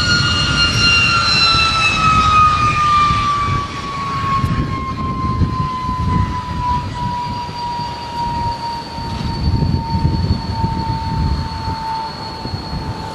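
De Havilland Vampire T11's single Goblin turbojet running at high power as the jet rolls past along the runway: a loud, high whine over a rough rumble, the whine sliding steadily lower in pitch as the aircraft passes and draws away.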